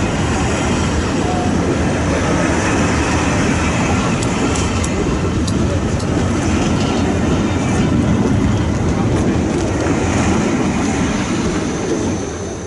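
Passenger coaches of a steam-hauled train running past at speed: a loud, steady rush and rumble of wheels on the rails, with a few light high ticks in the middle. The sound fades away near the end.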